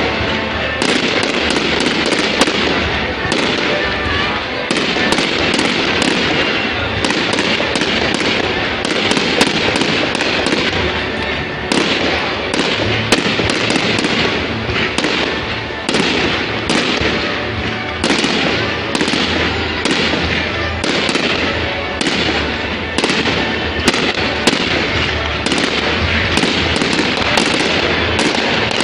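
A fireworks display going off: a dense, unbroken barrage of bangs and crackling, with sharp reports coming many times a second.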